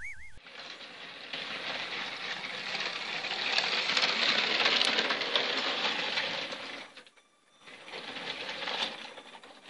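Lego City High-Speed Passenger Train (60051) running on plastic track: a steady whir and rattle from its electric train motor and wheels, loudest as it passes close about four seconds in. The sound cuts out for about half a second near the end, then resumes.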